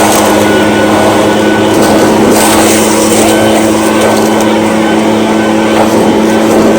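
Echo PB-580T backpack leaf blower's two-stroke engine running steadily at high throttle, with the loud rush of air from the blower tube.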